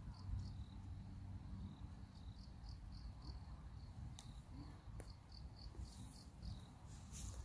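Crickets chirping in short, evenly repeated pulses, about four a second in runs, over a low rumble; two sharp clicks come a little past the middle.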